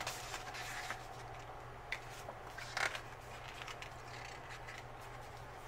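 Sticker book pages being flipped and handled: soft paper rustling, with a sharp click about two seconds in and a louder crinkle shortly after.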